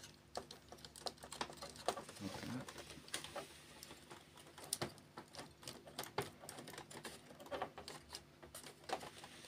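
Irregular light clicks and taps of the plastic frame and metal parts of a laser printer's fuser assembly being handled and lifted apart by hand.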